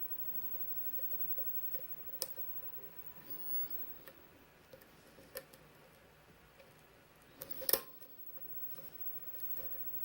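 Faint scattered clicks and light scrapes of a lock pick and tension wrench working the pins of a five-pin Kwikset pin-tumbler lock, with a sharper click about two seconds in and the loudest cluster of clicks about three-quarters of the way through.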